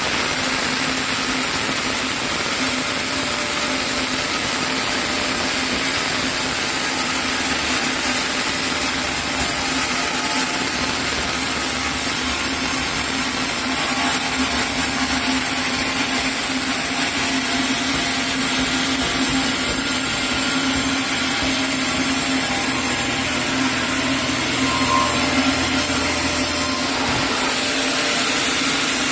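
Sawmill saw running steadily through a chinaberry log, a continuous machine noise with a constant low hum under a strong hiss.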